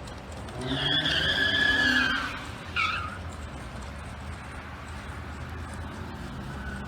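Car tyres squealing: one long squeal of about a second and a half, then a short chirp, over a steady low engine rumble.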